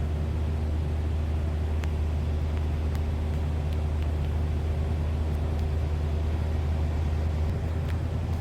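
1979 van's engine idling steadily from a cold start while it warms up, with a few faint ticks.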